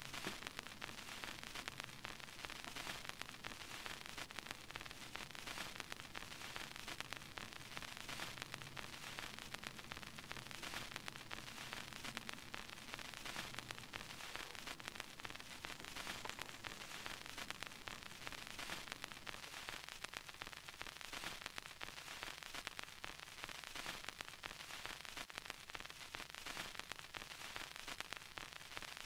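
Faint, steady static-like hiss, with a faint low hum underneath that fades out about halfway through.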